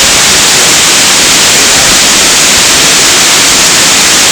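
Water of a tall mountain waterfall rushing down, a loud, steady hiss with no breaks.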